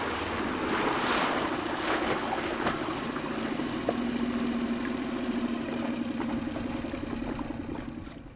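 Small boat's outboard motor running steadily, over a wash of water and wind noise.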